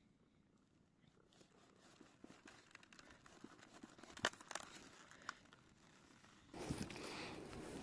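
Large cabbage leaves rustling and crackling as a hand handles them. It is faint at first, with a few sharp crackles around the middle, and turns into louder, steady rustling noise about two-thirds of the way through.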